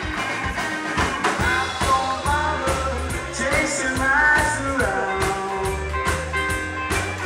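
Rock-and-roll style band music with a steady drum beat and bass, and a pitched lead line that bends in the middle.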